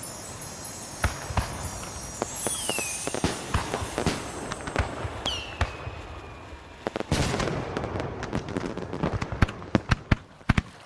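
Fireworks sound effect: scattered bangs and two whistles falling in pitch, then a dense run of crackling bangs in the second half that stops near the end.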